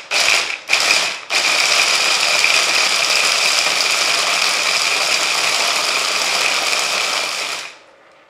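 Cuisinart immersion blender on its chopper bowl, chopping almonds: two short pulses, then a steady run of about six seconds that stops shortly before the end.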